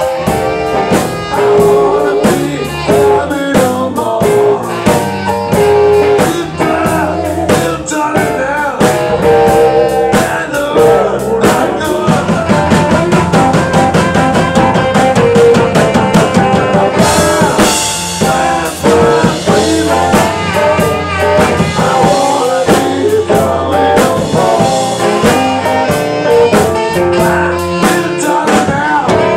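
Live band playing a blues number: drum kit, electric bass, electric guitar, keyboard and saxophone together over a steady beat, with a cymbal crash about two-thirds of the way through.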